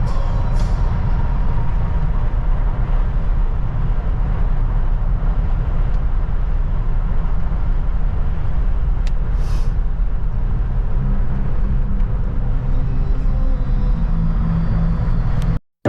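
Steady, loud low rumble of road and wind noise from a moving vehicle. It cuts off abruptly just before the end.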